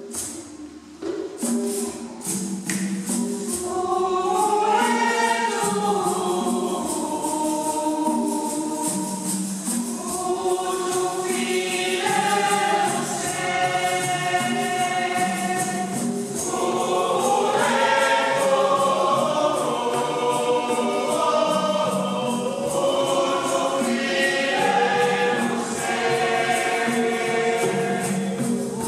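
Choir singing a gospel song in parts, over a hand-shaken percussion rattle keeping a steady beat.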